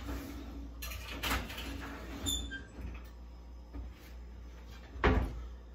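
An oven being loaded with a baking tray: a few knocks and clicks from the door and tray, then a heavy thump about five seconds in as the oven door shuts.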